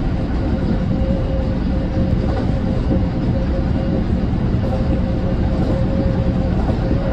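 Kintetsu electric train running along the line, heard from inside the front car behind the cab: a steady rumble of wheels on rail with a constant hum held at one pitch above it.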